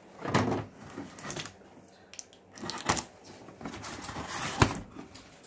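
A cardboard box being opened by hand: irregular bursts of cardboard rustling and scraping, with one sharp snap a little after four and a half seconds.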